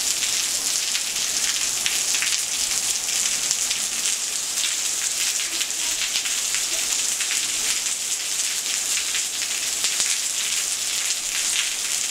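Steady rain shower falling on a concrete walkway and gravel: an even hiss of many small drops that holds steady throughout.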